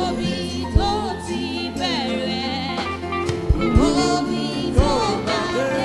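Live gospel praise music: a man singing lead into a microphone over a band with steady bass and a few drum hits.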